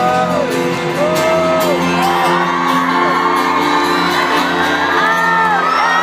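Live band music from a stadium sound system with long held chords, while the crowd whoops and sings along.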